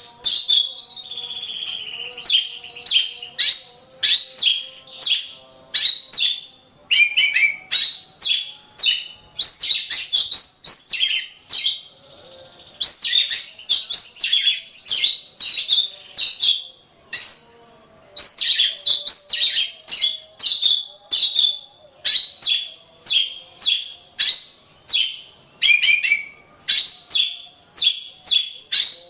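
Oriental magpie-robin (kacer) singing a long, fast run of sharp, varied high-pitched whistles and chattering notes, broken by a brief pause about twelve seconds in.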